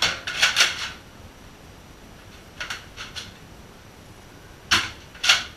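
A Nerf foam-dart blaster being cocked and fired, with a string of sharp plastic clacks and pops: a quick cluster at the start, two fainter ones in the middle and two loud ones near the end.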